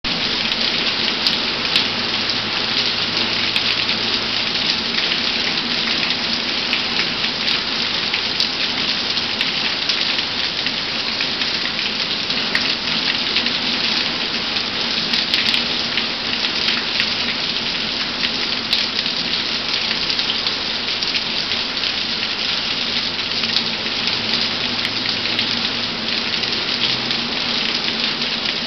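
Steady rain falling, a dense, even hiss of drops with many small ticks, unchanging throughout.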